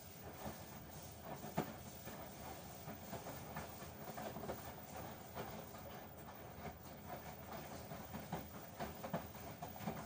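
LG front-loading washing machine drum turning a wet load on a quick wash cycle: water sloshing and hissing, with irregular soft knocks as the laundry tumbles. The strongest knock comes about a second and a half in.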